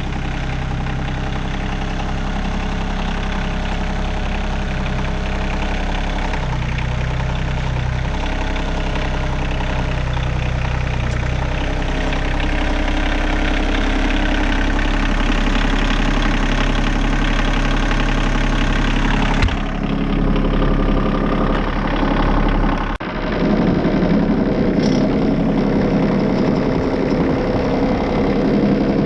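Compact tractor's diesel engine running steadily, pulling a subsoiler to cut a shallow trench. The engine note changes abruptly twice, at about two-thirds of the way through and again a few seconds later.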